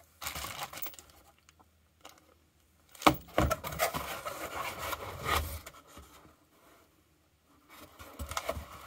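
Handling noise as tie rod ends and their cardboard boxes are moved about by hand: rubbing and scraping, with a sharp knock about three seconds in and short quiet pauses between.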